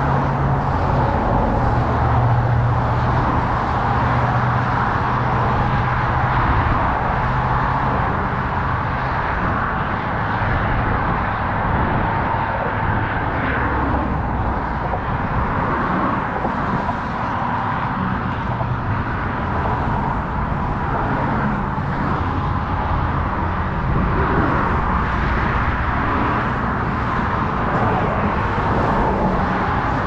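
Steady road traffic noise: cars passing continuously, with a constant low rumble.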